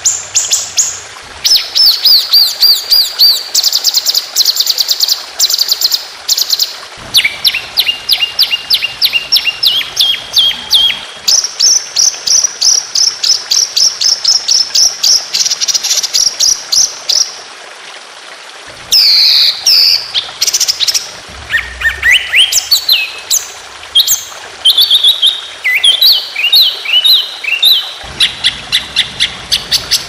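Songbird singing a rapid-fire 'tembakan' song of the kind played as masteran to train contest birds: long runs of fast repeated high notes, each run at a different pitch. Just past the middle the runs break off briefly for a few sweeping whistles, then start again.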